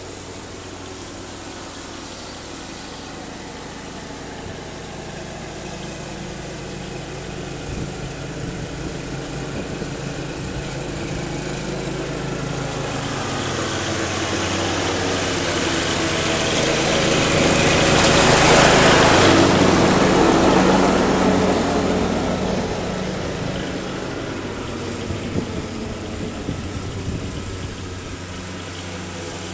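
Riding lawn mower's engine running steadily, growing louder as it passes close by a little past halfway, then fading as it moves away.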